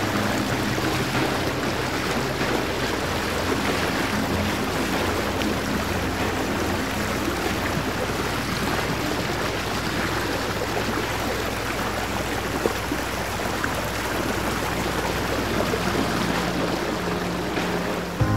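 Steady rushing noise of running water, with faint background music underneath.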